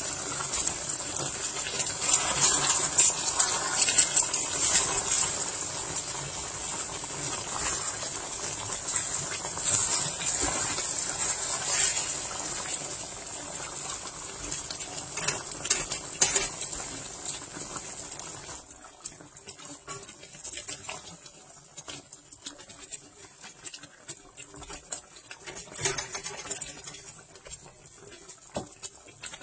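Coconut-milk sauce simmering and bubbling in a stainless steel wok, with a silicone spatula stirring and tapping against the pan. About eighteen seconds in the sound drops to quieter, scattered bubbling.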